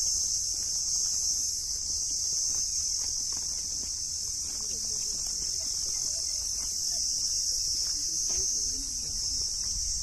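A steady, high-pitched insect chorus, with footsteps on dry grass and soil and faint voices about halfway through and again near the end.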